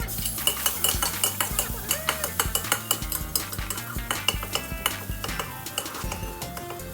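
Stir-frying: a spatula rapidly scraping and knocking against a pan, with food sizzling in hot oil. Background music with stepped notes plays underneath.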